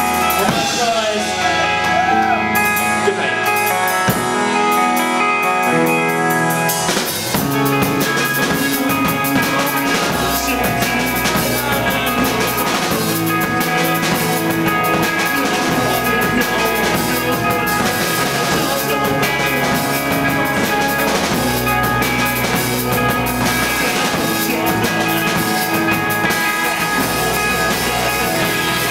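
Live rock band playing: distorted electric guitars, bass guitar and drum kit. The sound is lighter at first and thickens about seven seconds in, when the bass and full drums come in.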